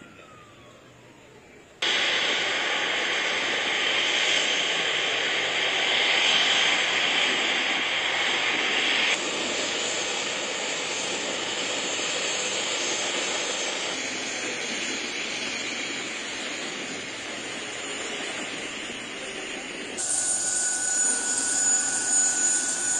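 Twin-engine jet airliner's engines running as it taxis in: a loud, steady jet roar and hiss that starts abruptly about two seconds in and shifts abruptly twice. Near the end a steady high whine sits over the noise.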